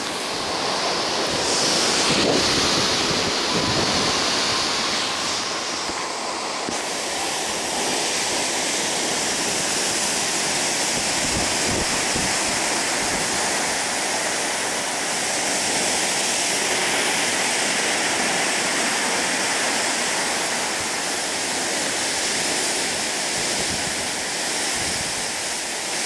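Sea water rushing and breaking along a moving ship's hull in a steady rush, with wind buffeting the microphone in low gusts.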